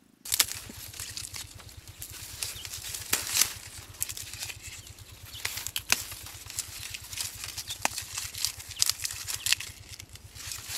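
Dry reed leaves rustling and crackling as they are broken off and bundled by hand, with sharp irregular snaps scattered through it.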